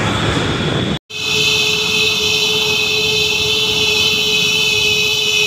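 About a second of rushing wind and road noise from riding, then an abrupt cut into a vehicle horn held down in one long, unbroken, steady blare.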